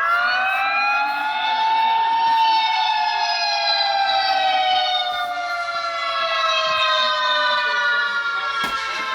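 Emergency alert siren wailing: one tone that rises quickly over about the first two seconds, then falls slowly and steadily in pitch. A short click comes near the end.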